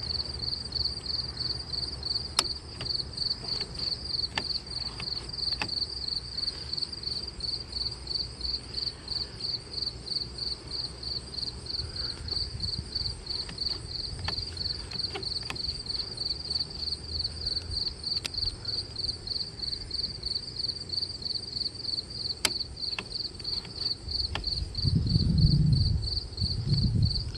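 Insects chirping steadily, a high pulsed trill repeating evenly a few times a second. There are a few faint sharp clicks, and a louder low rumble near the end.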